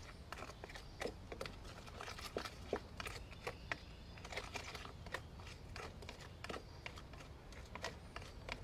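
A small plastic toy shovel stirring thick mud in a bowl: irregular small scrapes and clicks as it works through the mud and knocks against the bowl.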